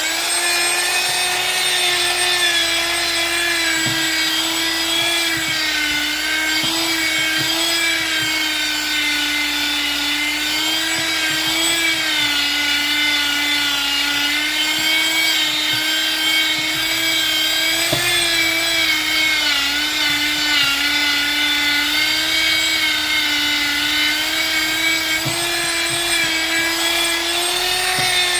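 High-speed handheld electric power tool running continuously against a wooden slab, a steady motor whine whose pitch dips and rises slightly as the load changes.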